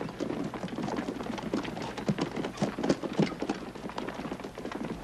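Hooves of several horses clopping over ground, an uneven, overlapping run of hoofbeats several a second.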